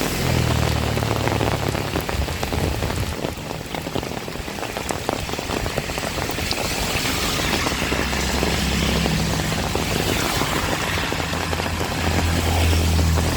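Heavy rain pouring down, a dense steady hiss. A low rumble swells under it at the start, again about two-thirds of the way through, and near the end.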